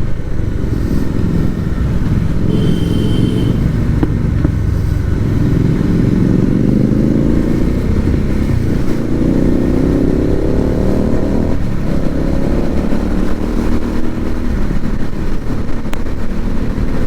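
Motorcycle engine running on the road, its pitch climbing steadily as it accelerates from about five seconds in, dropping at a gear change near twelve seconds, then rising again.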